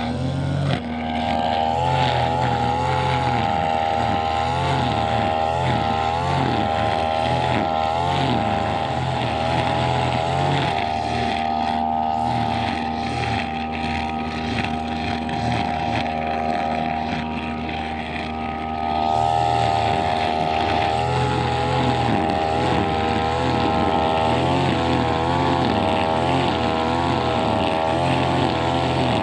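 Brushcutter engine running at high revs, its pitch wavering up and down as it takes and sheds load cutting grass. It eases off about two-thirds of the way through, then picks up again.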